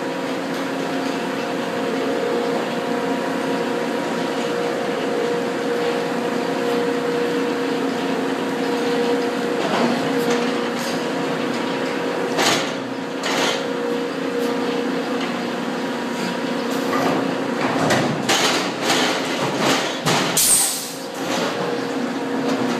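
Sawmill head rig machinery running with a steady hum, with metal clanks and knocks from about ten seconds in as the log is moved onto the carriage, and a short hiss near the end.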